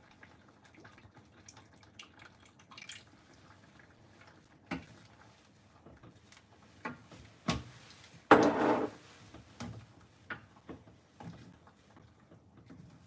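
Wooden spatula stirring curry udon in a metal saucepan, liquid sloshing, with scattered light knocks against the pan and one louder, short noise about eight seconds in.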